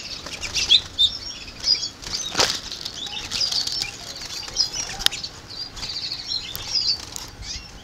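House finches in an aviary chirping, many short high notes throughout, with wings fluttering and a couple of sharp knocks, one about two and a half seconds in and one about five seconds in, as the nest is handled.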